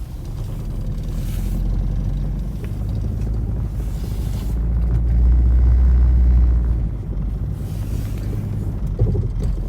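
2006 Nissan Altima engine and road noise while driving, a low steady rumble that swells about five seconds in and eases off near seven seconds. The engine has a misfire on cylinder 2, put down to a failing coil pack.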